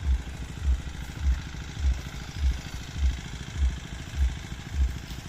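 Engine of a water pump dewatering the pond running steadily: a fast low chugging with a heavier thump recurring about every half second.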